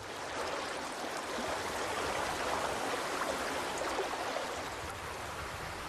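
A river in spring flood, its meltwater rushing steadily as an even wash of water noise.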